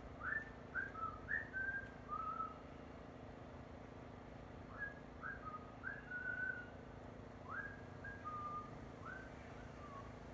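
A person whistling a short tune in three brief phrases of clear notes, each note sliding up and then held, over a faint steady hum.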